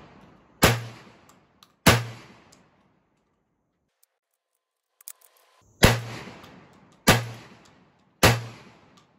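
Stoeger M3000 12-gauge semi-automatic shotgun firing heavy hunting loads. Two shots come about a second apart, then a pause with a few faint clicks, then three more shots just over a second apart, each echoing away. These are break-in rounds, fired to work in the new shotgun's action.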